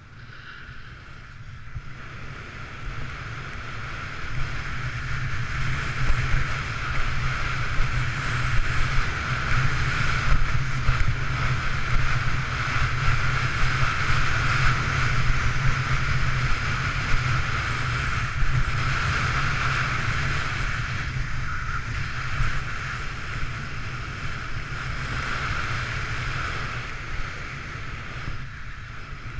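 Wind rushing over a body-mounted action camera's microphone on a ski run downhill, with the hiss of skis sliding on groomed snow. It grows louder over the first several seconds and stays steady, easing off just before the end.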